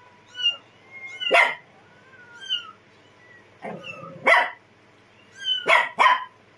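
A small, timid puppy yapping in about six short, sharp barks, with thin, high whines between them.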